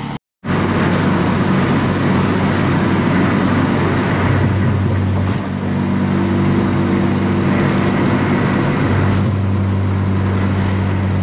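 Inside the cabin of a turbocharged B20 VTEC Honda Civic EG hatchback cruising on the freeway at about 55 mph: a steady engine drone under road noise. The sound cuts out for a moment just after the start.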